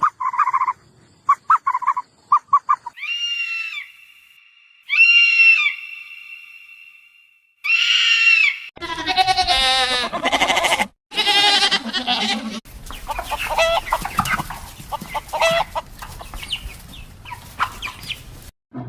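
Farm animal calls: a quick run of short clucks, then three separate bleats about a second long, followed by a dense, busy stretch of many chickens clucking and calling over one another.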